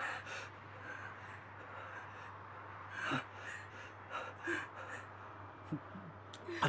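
Frightened gasping breaths from people in a car, with short whimpering vocal sounds near the end, over a low steady hum.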